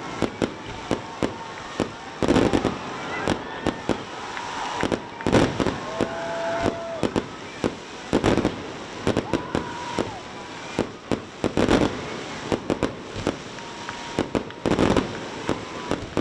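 Fireworks display: a rapid run of sharp bangs and pops, several close together at times, with booming echoes after the larger bursts.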